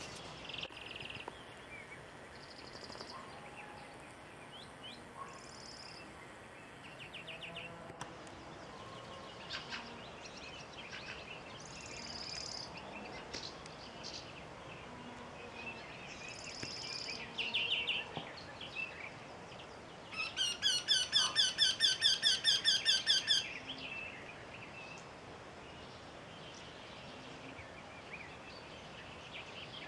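Eurasian wryneck singing: a run of about fifteen quick, evenly spaced notes lasting about three seconds, about two-thirds of the way in. Other small birds chirp and sing now and then around it.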